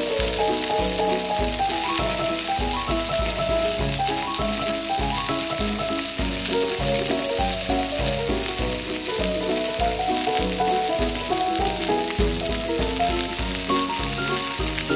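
A steady frying sizzle, like food in a hot pan, added as a sound effect to a toy-kitchen cooking scene, over light background music with a melody of short notes.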